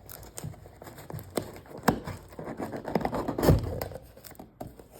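Cardboard shipping box being opened and handled: scraping, tearing and crumpling of tape and cardboard, with a string of short clicks and knocks, the loudest about three and a half seconds in.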